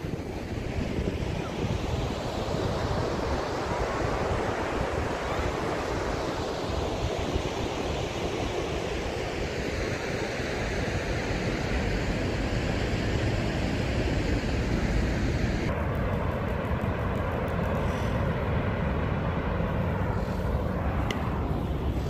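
Steady rushing of a large waterfall, mixed with wind rumbling on the microphone. About three-quarters of the way through the sound changes abruptly and becomes duller.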